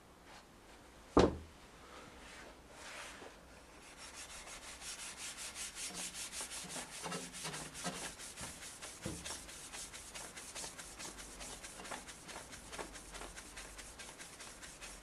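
A cloth rubbing G3 paint compound by hand onto a BMW F650 GS's exhaust downpipes, in quick, steady back-and-forth strokes that begin a few seconds in. A single sharp knock about a second in.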